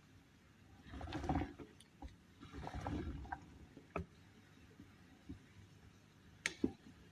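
Liquid sloshing in two swells, about a second in and about three seconds in, with a few light clicks and knocks afterwards.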